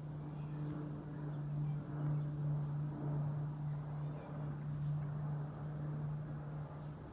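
Steady low mechanical hum of a running motor or engine.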